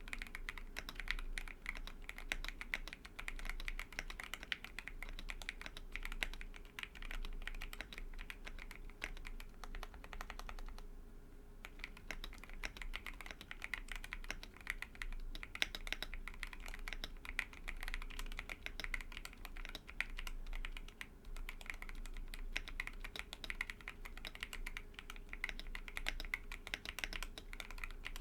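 TOFU65 mechanical keyboard with Everglide Aqua King v3 linear switches (67 g springs), a polycarbonate plate and PBT keycaps, typed on steadily with a light touch. The keystrokes run in a continuous patter, with a brief pause about eleven seconds in.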